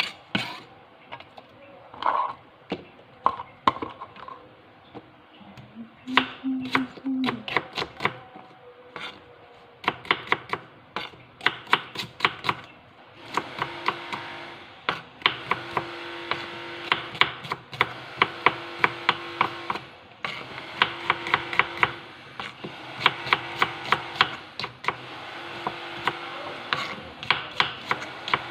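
Knife chopping on a cutting board: irregular strokes at first, settling into fast, steady chopping about halfway through. A low steady hum runs beneath the chopping in stretches during the second half.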